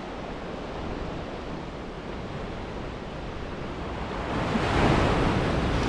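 Sea surf washing on the shore, with wind buffeting the microphone; a wave swells louder about four seconds in.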